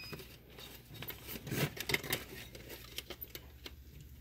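Light, irregular clicks, taps and scrapes as a snap-in circuit breaker and fingers work against the thin sheet-metal case of a Club Car Powerdrive 3 golf cart charger, the breaker being lined up in its mounting hole.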